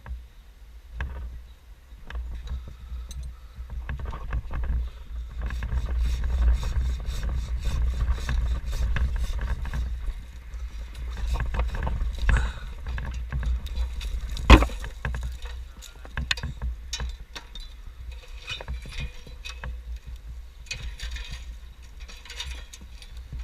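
Repeated knocks, scrapes and rustling as the climber handles pieces of the tree and crumbling chimney, with one sharp loud knock about fourteen seconds in, over a steady low rumble.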